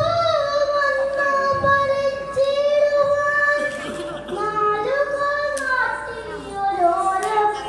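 A boy singing a Malayalam poem into a microphone, a chanted recitation in long held notes that step and glide from one pitch to the next.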